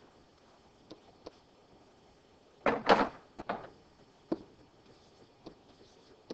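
Scattered light clicks and taps of a stylus writing on a pen tablet, with a louder scratchy knock about three seconds in.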